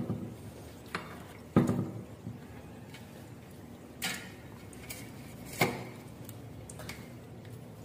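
Stainless-steel plates, bowls and a steel tumbler clinking and knocking now and then during a meal eaten by hand: about six separate knocks, the loudest about a second and a half in.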